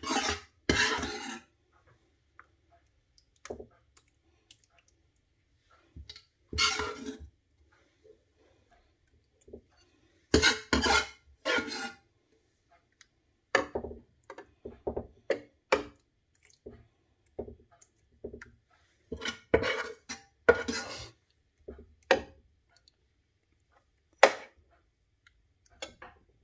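A metal spoon scraping and knocking against a baking tray while spooning and spreading meat sauce: irregular scrapes and clinks with quiet gaps between them, and a few sharp single knocks in the second half.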